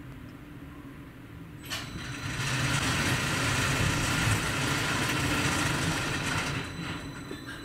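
Automated multi-storey car park machinery running. A sharp clack comes about two seconds in, then a loud steady rush of motor and mechanism noise lasts about four seconds and dies away, leaving a thin high whine.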